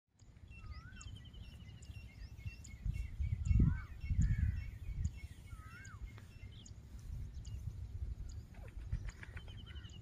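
Grey francolins (teetar) calling: repeated short whistled notes and a fast falling trill near the start and again near the end. Wind rumbles on the microphone, with louder gusts about three and a half and four seconds in.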